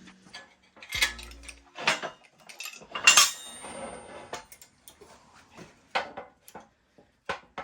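Steel shop-press parts and hand tools clinking and knocking together during assembly: a string of sharp metallic clanks, some ringing briefly, the loudest about three seconds in.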